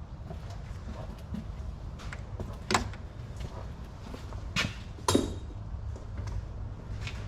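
A few sharp metallic clinks and knocks from a socket wrench being worked on the alternator's mounting bolts, the loudest about five seconds in ringing briefly, over a steady low hum.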